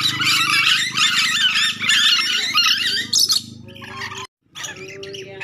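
Ornate lorikeets (nuri dora) chattering in a dense run of shrill, rapid screeches. The screeching thins out after about three seconds, cuts off briefly, then resumes more quietly.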